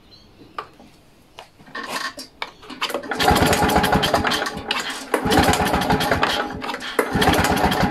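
Victa two-stroke lawn mower engine cranked over with its recoil pull-starter, spark plug out and a compression gauge in the plug hole, so it turns over without firing. It starts about three seconds in and runs as repeated pulls of the cord, with short breaks about two seconds apart.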